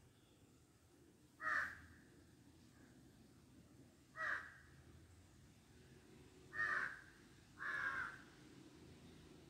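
A crow calling four times, short harsh calls spaced a couple of seconds apart, the last two close together.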